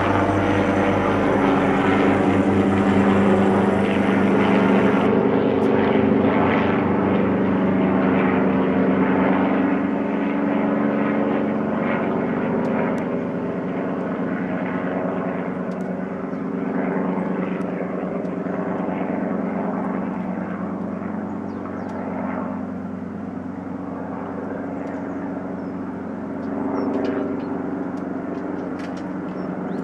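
Light helicopter flying low overhead: a steady engine drone with fast rotor thudding, loudest in the first few seconds, then slowly fading as it moves away.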